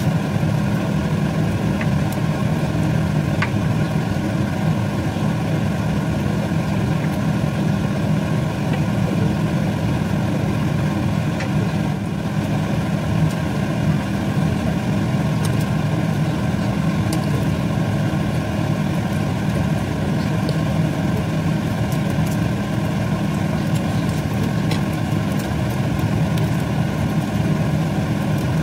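A steady, unbroken low hum that holds the same level throughout, with a few faint light ticks here and there.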